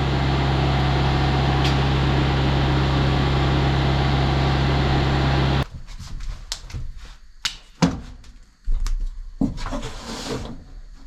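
Steady hum of a running shop machine with a low drone, cutting off abruptly about halfway through. Then scattered light clicks, knocks and rustles of hands working.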